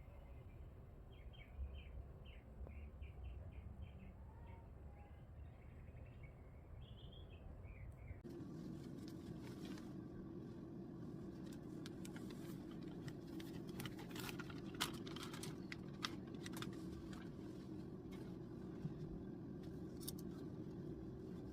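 Small birds chirping faintly for the first several seconds, then a sudden change about eight seconds in to a steady low hum with scattered sharp clicks and clinks.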